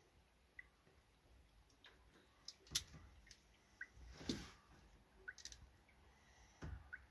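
Faint, sparse clicks of a self-adjusting wire stripper being handled on electrical wires, the clearest about three and four seconds in; otherwise near silence.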